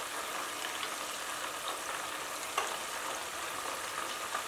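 Chicken wings deep-frying in hot oil in a deep stainless steel pot, a steady sizzle and crackle as they are turned with metal tongs, with one sharp click about halfway through.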